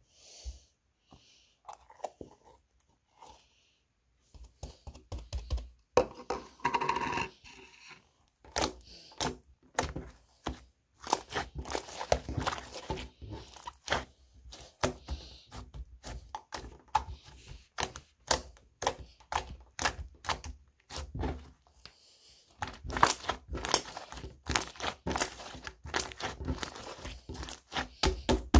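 Gold glitter slime squished and poked by fingers, giving dense runs of quick wet clicks and pops; the clicking starts about four seconds in after a quieter stretch.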